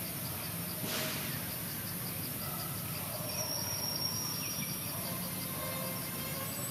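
Forest insects chirping: an even, rapidly repeating high-pitched pulse over a steady high hiss, with a brief rustle about a second in.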